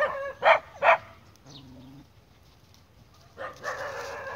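Dog barking, three short barks in the first second, then a rougher, denser sound for about the last second.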